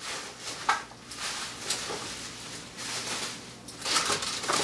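Plastic packing wrap crinkling and rustling as it is handled and pulled out of a cardboard box, with a few sharper crackles.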